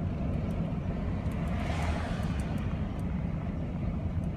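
Steady low rumble of engine and road noise inside a moving vehicle's cabin, with a brief swell of hiss about two seconds in.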